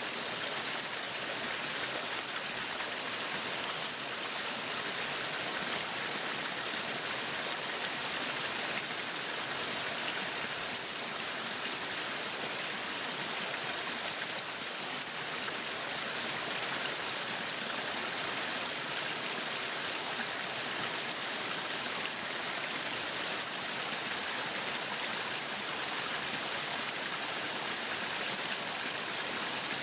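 Meat sizzling on a yakiniku grill: a steady, even sizzle with no breaks.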